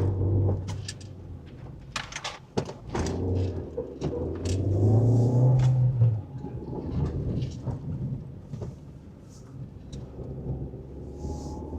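Car engine and road rumble heard from inside the cabin while driving, with scattered knocks and rattles. The engine drone swells briefly about halfway through.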